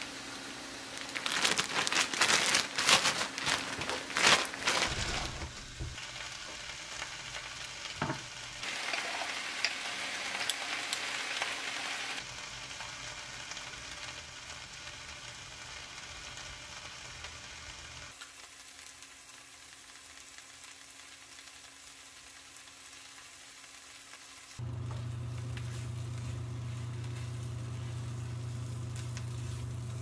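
Sliced red onions sizzling in a frying pan as they are stirred. A plastic bread bag crinkles loudly for a few seconds near the start. A steady low hum joins the frying near the end.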